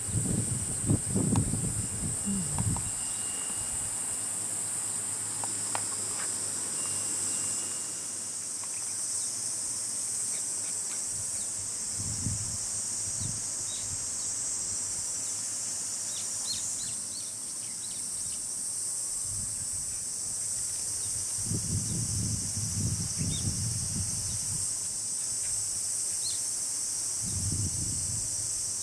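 A steady, high-pitched insect chorus, with a few short bird chirps in the second half.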